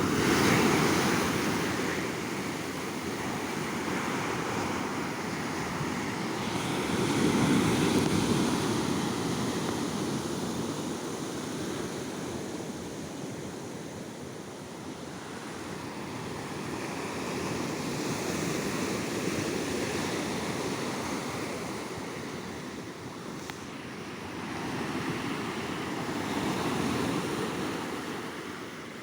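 Sea waves breaking and washing up a beach, the surf swelling and fading in slow surges several seconds apart.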